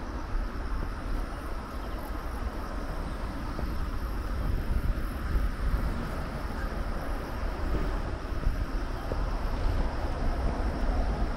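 Wind buffeting the microphone of a camera moving along an outdoor path: a steady low rumble with small flutters and no distinct events.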